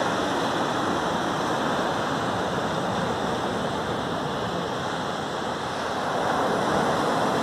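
Ocean surf breaking and washing onto a sandy beach: a steady rushing of waves, swelling a little louder near the end.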